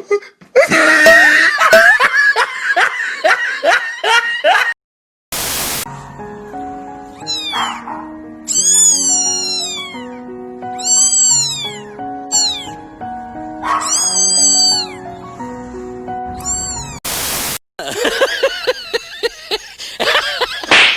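Kittens meowing: high-pitched calls, each falling in pitch, repeated several times. In the middle they sound over background music with plain piano-like notes.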